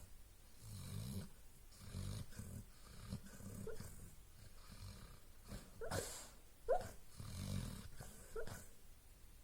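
A sleeping dog snoring in low breaths while dreaming, with a few short high whimpers or yips in the second half.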